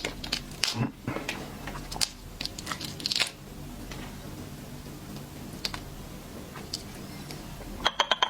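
Hard seafood shells clicking, crackling and crunching as they are handled and eaten, in quick bursts over the first three seconds, then a quiet stretch and a quick cluster of clicks near the end.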